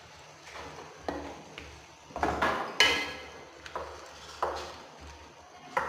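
Wooden spoon stirring potato and eggplant pieces in a metal wok, with a series of scrapes and knocks against the pan. The loudest knock comes about three seconds in and leaves a brief metallic ring.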